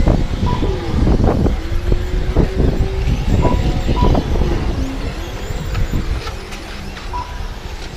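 Radio-controlled racing trucks running on a dirt oval, their motors whining up and down in pitch as they accelerate and slow for the turns, over a heavy low rumble. About four short high beeps sound during the run.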